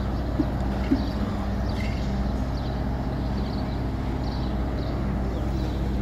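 Kato mobile crane's diesel engine idling steadily, with a few faint bird chirps.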